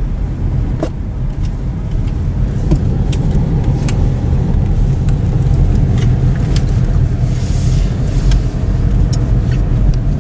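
Car driving slowly, heard from inside the cabin: steady low engine and road rumble, with scattered light clicks and rattles.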